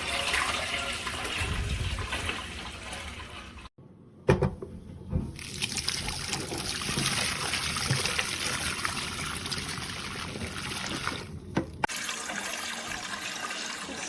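Water running and trickling, broken by abrupt cuts about four seconds in and again near the end.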